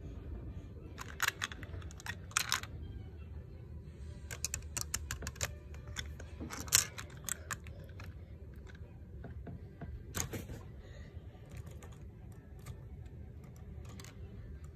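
Plastic Lego pieces clicking and tapping as they are handled: scattered sharp clicks, with a quick run of them in the middle.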